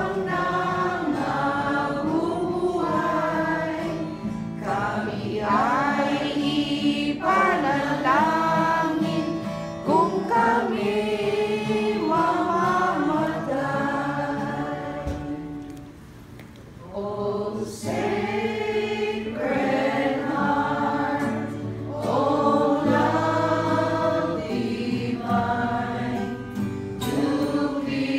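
A group of people singing a hymn together, accompanied by an acoustic guitar. There is a short break in the singing a little past halfway.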